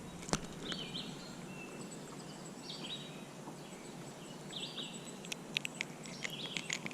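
A bird calling repeatedly, short high notes in pairs about every two seconds, over a steady background hiss. A quick cluster of sharp clicks comes near the end.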